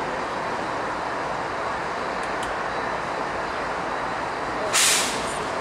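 Steady rumble of a long freight train's cars rolling past on the rails, with a short, loud hiss about five seconds in.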